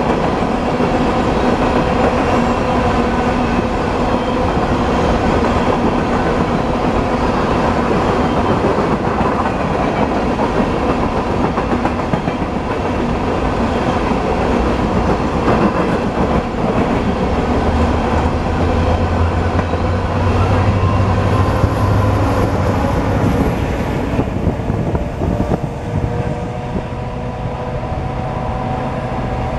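Coal train hopper cars rolling past, steel wheels running on the rails in a steady rumble with ringing tones. The sound thins out near the end as the last car goes by.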